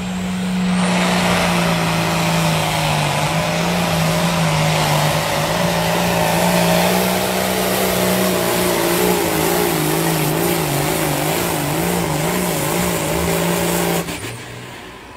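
Hot farm class pulling tractor's diesel engine at full power during a sled pull pass. It comes up loud about a second in, holds a steady pitch that wobbles rhythmically toward the end, then falls away sharply near the end as the run finishes.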